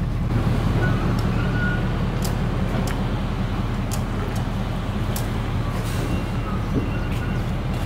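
Vehicle engine idling steadily, with a few short sharp clicks and knocks scattered over it.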